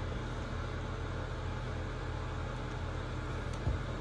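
Steady low hum under an even hiss, with a short soft knock a little before the end.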